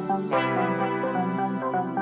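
Background music of held chords and a melody line, with a new chord coming in about a third of a second in.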